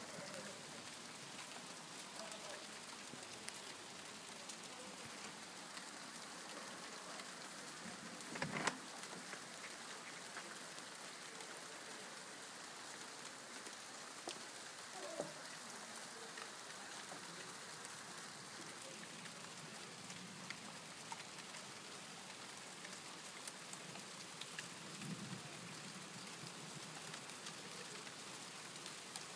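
Steady rain falling in a continuous hiss from a supercell storm, with a sharp knock about eight seconds in and a smaller one about fifteen seconds in.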